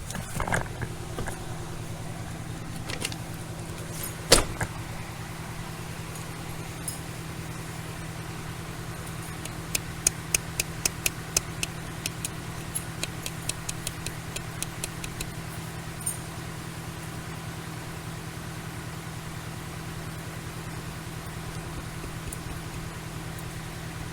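Steady low hum of an idling patrol car heard from inside the cabin, with one sharp knock about four seconds in and a run of light, quick clicks around the middle.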